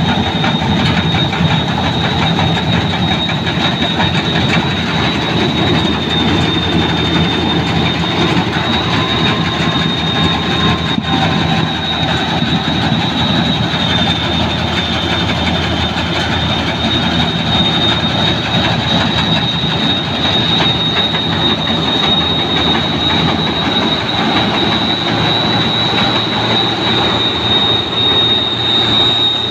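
New Holland Clayson 8060 combine harvester running as it harvests rice: a loud, steady mechanical din from the machine, with a high, steady whine over it.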